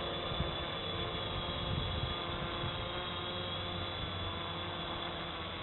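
Electric motors and propellers of a multirotor drone whining steadily in a hover, the pitch shifting slightly as it holds position in loiter mode against the wind. Wind buffets the microphone underneath.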